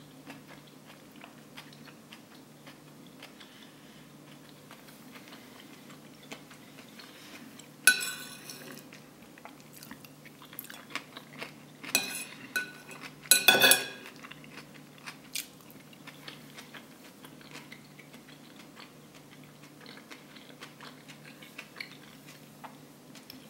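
Metal spoon clinking and scraping on a plate as leftover rice is scooped up, with a few loud sharp strikes, one about a third of the way in and two more around the middle. Soft, close-miked chewing and mouth clicks fill the gaps between.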